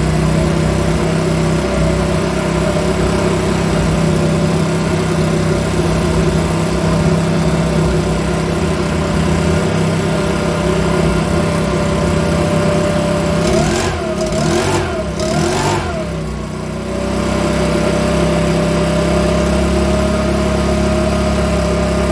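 Makita BHX2500's 24.5 cc four-stroke engine running steadily at idle. About two-thirds of the way through it revs up briefly three times in quick succession, then falters for a moment before settling back to a steady idle.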